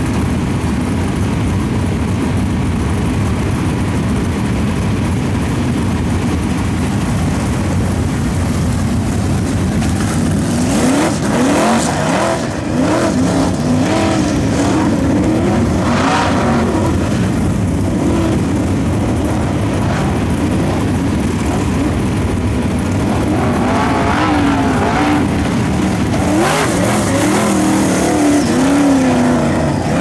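Dirt late model race car's V8 engine running hard as it laps a dirt oval. Its pitch rises and falls as the driver lifts for the turns and accelerates again.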